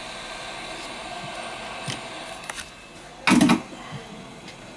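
Steady rush of a hot air tool blowing on the phone's back cover, with one loud knock about three seconds in.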